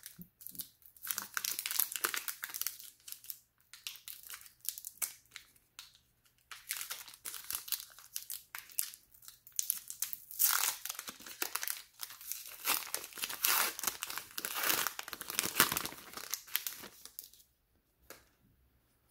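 A trading card pack's wrapper being torn open and crinkled by hand: irregular crackling and tearing that goes on and off and stops shortly before the end.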